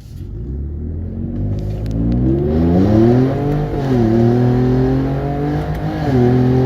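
Ford Raptor's twin-turbo 3.5-litre EcoBoost V6, fitted with a Borla ATAK exhaust, under hard acceleration from a standstill. The revs climb, fall at an upshift about three and a half seconds in, climb again and fall at a second upshift near the end.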